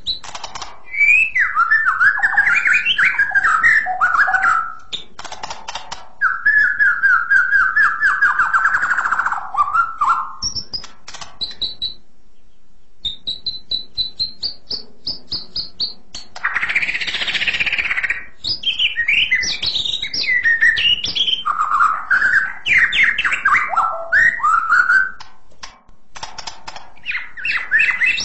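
White-rumped shama (murai batu) singing a clear, shrill song of varied whistled phrases and fast trills. It breaks off briefly about twelve seconds in, then sings long high notes and a short harsh, noisy note before more phrases.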